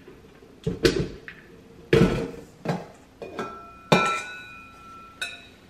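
Stainless-steel stand-mixer bowl and tilt-head being handled: a run of sharp knocks and clunks as the head is tipped up and the metal bowl twisted off its base. The steel bowl rings for about a second after a sharp knock about four seconds in.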